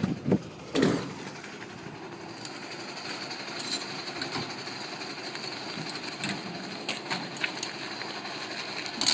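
Fire pump truck's engine and pump running steadily, with scattered clicks and knocks of hose gear. There is a short loud burst about a second in.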